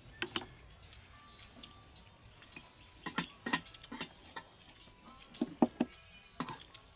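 Metal eating utensils clinking: about eight short, sharp, irregular taps of spoons against a metal cooking pot, the loudest cluster near the end.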